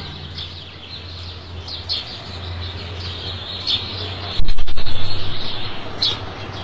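Birds chirping now and then over a steady low hum. About four and a half seconds in, a sudden loud low rumble swells and fades away over about a second.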